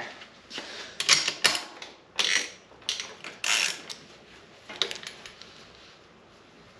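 A string of sharp mechanical clicks and clacks from bicycle parts and tools being handled during a repair, about six knocks in the first five seconds, then only a faint steady hum.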